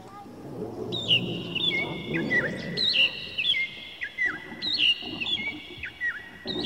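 Recorded birdsong played in an echoing museum hall: short chirp calls every half second or so, each trailing off in a long ring, over a low room murmur.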